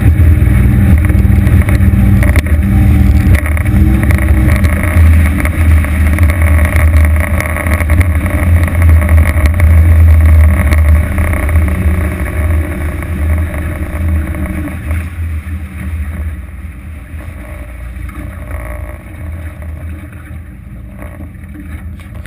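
250 hp Evinrude outboard driving an aluminium boat at speed, a steady engine hum with wind and water noise over the hull. From about halfway through, the sound grows gradually quieter as the boat slows.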